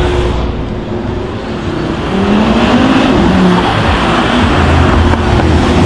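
A modified car's engine revving as it accelerates away, its note rising about two seconds in.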